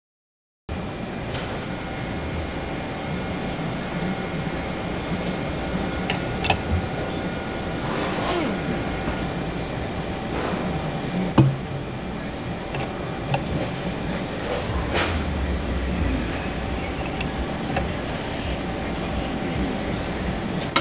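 Large Mazak manual lathe running, its spindle turning a big stainless steel workpiece, with a steady machine hum. The sound starts suddenly under a second in. A few sharp knocks come from the machine, the loudest about eleven seconds in.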